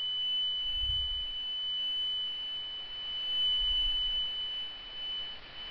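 Steady high-pitched tone over a constant hiss: the AM-demodulated audio output of a software-defined radio receiver. Two low thuds come about one and four seconds in.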